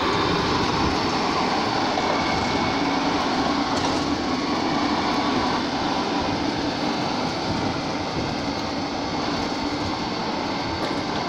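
A stone-cutting machine running steadily, giving a loud, continuous mechanical noise with no breaks.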